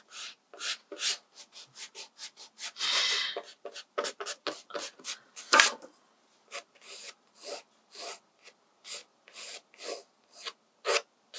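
Pencil scratching on watercolour paper in quick short strokes, about two a second, with one longer stroke about three seconds in, as a sketch is drawn in.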